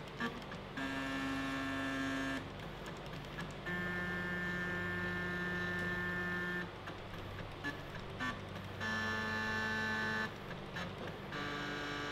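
Stepper motor of a rotary welding positioner running with a steady whine that jumps to a new pitch four times as its speed is changed on the fly from the controller, with short dips and small clicks between the steps.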